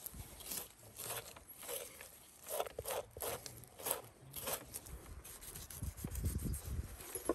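Large kitchen knife slicing hide and membrane away from a raw cow's head: a run of short cutting and scraping strokes, about two a second, then lower rubbing and thudding as the head is handled on the wooden board near the end.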